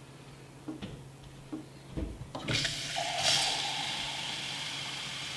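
Kitchen faucet turned on about two and a half seconds in, water running steadily from the tap into a drinking glass held over a stainless steel sink.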